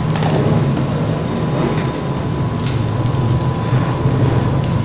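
Onions, green chillies and ginger-garlic paste sizzling steadily in hot oil in a nonstick frying pan, stirred with a metal spatula, with a few light clicks and a faint steady high tone underneath.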